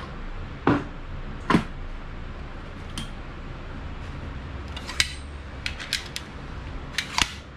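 Sharp metallic clicks and clacks, two of them loud in the first couple of seconds and a quick run of light clicks later on, as a Bostitch pneumatic stapler is handled at the bench. A steady low hum runs underneath.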